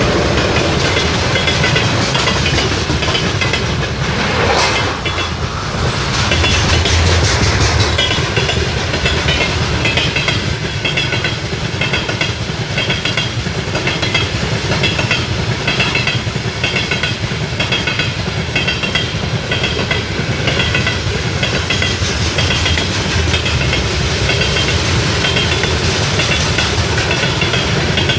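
A train rolling past close by, its wagon wheels clattering over the rail joints in a steady, regular clickety-clack over a continuous rumble.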